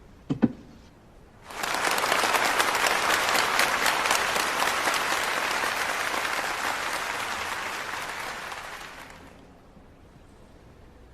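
Two quick sharp clicks of billiard balls striking, then an audience applauding for about seven seconds, dying away near the end.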